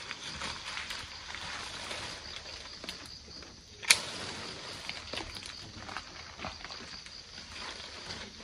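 Grapefruit tree branches and leaves rustling and shaking as fruit is pulled off by hand, with small twig clicks and one sharp snap about four seconds in.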